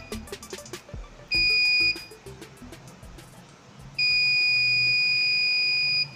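Piezo buzzer on a homemade IR multi-level proximity sensor sounding a steady high-pitched beep. It sounds briefly a little over a second in, then holds for about two seconds from near the middle. The beep marks an object at the closest detection level, when all three indicator LEDs are lit.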